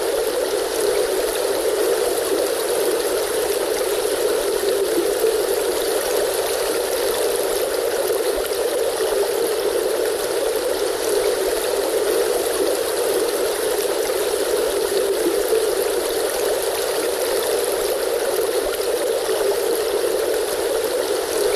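Flowing stream water rushing steadily and evenly, with no splashes or breaks, its sound weighted toward a low, full rush.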